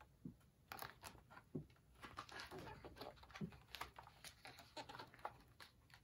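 Near silence with faint, scattered rustles and taps of a picture book's pages being handled and turned.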